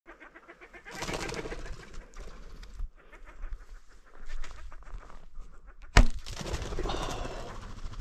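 A wooden self bow shot: a single sharp snap of the released string about six seconds in, the loudest sound here. Before it come a few seconds of rustling and handling noise.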